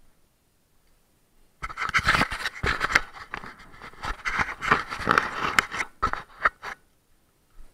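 Close, irregular scraping and rustling for about five seconds, starting about a second and a half in: a player moving on debris-strewn concrete with gear rubbing near the microphone.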